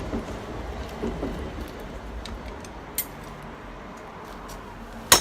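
A new mortice lock and its brass cover being handled: light metal rattling, a small click about three seconds in and a loud, sharp metallic click near the end.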